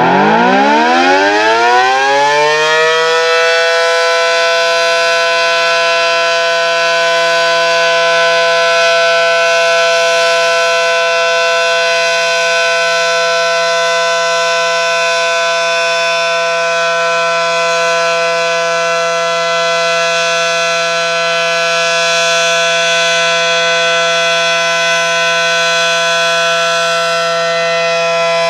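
ACA Allertor 125 tornado siren sounding its steady alert signal. It winds up in pitch over the first three seconds, then holds one rich, steady tone at an even loudness. Its rotator is broken.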